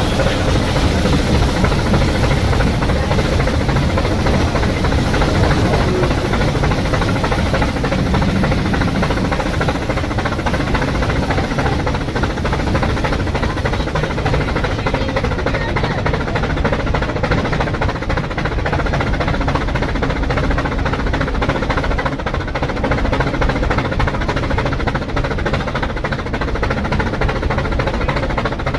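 Rack steam locomotive of a mountain railway working under steam, puffing steadily with a steady hiss.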